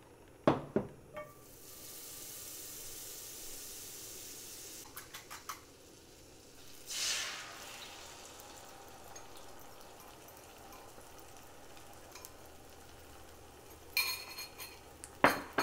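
Oil and butter sizzling in a frying pan that is a little too hot, starting about a second in, with a louder surge of sizzling about seven seconds in. A few clicks and clinks of a utensil on the pan come near the start, around five seconds in and near the end.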